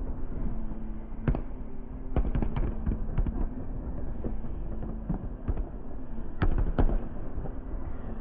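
Fireworks going off: a string of sharp bangs, a quick cluster about two seconds in and a close pair near the end, over a steady low rumble.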